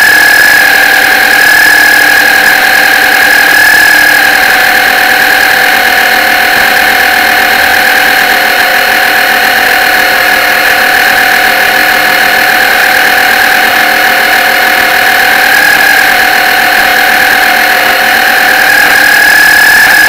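Motor of a radio-controlled model boat running steadily, heard as a loud, high, unbroken whine right beside the deck-mounted camera.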